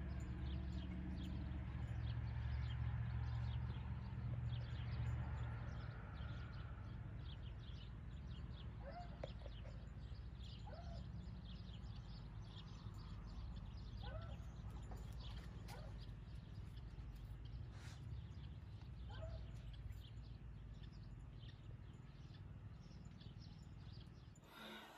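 A sheep drinking from a water tub, with short ticking sounds throughout. Birds chirp now and then. A low rumble fades out after about six seconds.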